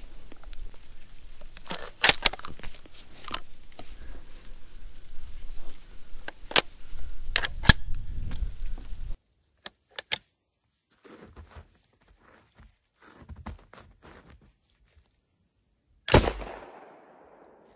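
Sharp metallic clicks and clacks as a Cobray Terminator single-shot 12-gauge shotgun is handled, the two loudest about two seconds in and near the middle. About sixteen seconds in, one shotgun shot with a ringing tail that dies away over a second or so.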